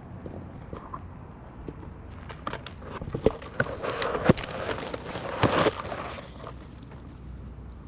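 Rustling with scattered clicks and knocks, building to a louder patch about three to six seconds in, then dying away.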